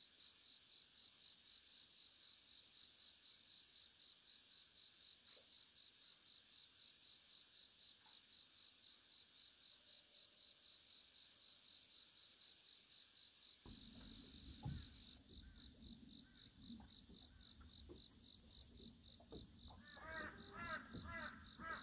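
Faint insect chirping, a steady pulsing trill at about three pulses a second. About two-thirds through, a low rumbling noise comes in, and near the end there is a quick run of short chirps.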